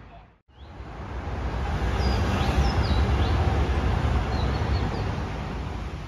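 Outdoor ambience: a loud, deep rumble of noise that swells through the middle and eases off, with several short, high bird chirps over it.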